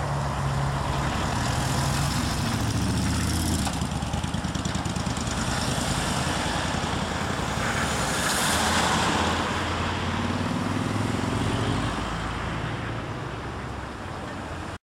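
Engines of emergency vehicles running as they drive off and pass by. The engine pitch rises about ten seconds in as one accelerates, and the sound is loudest around eight to nine seconds in.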